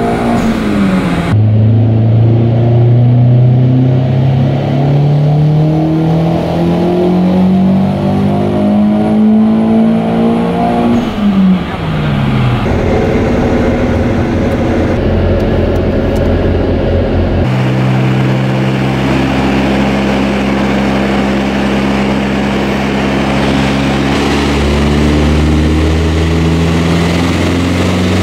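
Audi A4 1.8 turbo four-cylinder engine under full load on a chassis dyno. It falls from high revs at the start, then revs steadily upward through a pull for about ten seconds. It drops off about eleven seconds in and then runs at a steadier, lower speed.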